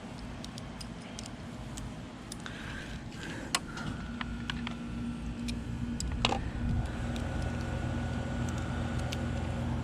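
Light clicks and small rattles of cable and parts being handled on a motorcycle frame, over a steady mechanical hum that grows louder from about four seconds in.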